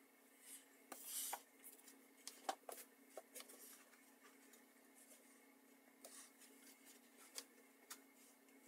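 Faint handling noises of books being picked up and stood on a carpeted floor: scattered soft knocks and clicks and brief rustles of covers, over a steady low hum.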